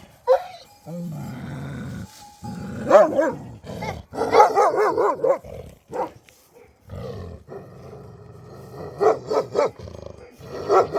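Animal calls: several short pitched calls, with a long quavering call about four to five seconds in and a few more near the end.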